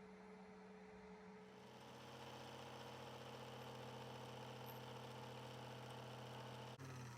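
Electric polishing motor running steadily with a low hum, joined about a second and a half in by a hiss as the steel case or bracelet is worked against the wheel. Near the end a click, and the motor's hum begins to wind down.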